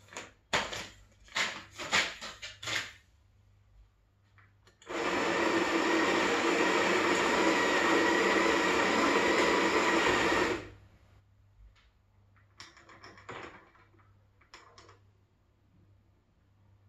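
Electric burr coffee grinder running for about six seconds, grinding beans for espresso, then cutting off suddenly. Before it come a few rustles and clacks of coffee packets being handled.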